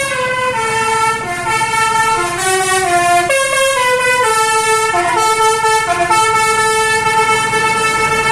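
Bus telolet horn (Basuri multi-trumpet air horn) playing a tune: several horn tones sounding together step from note to note about every half second, then settle on one long held note in the second half.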